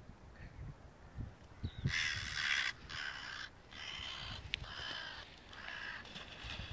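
A crow cawing, a run of about six caws roughly a second apart, starting about two seconds in.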